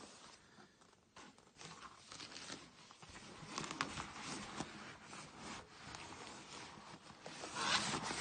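Nylon fabric of a soft carry case rustling and scraping as a hardback book is slid into it and the flap is handled, with scattered soft clicks; it grows louder near the end.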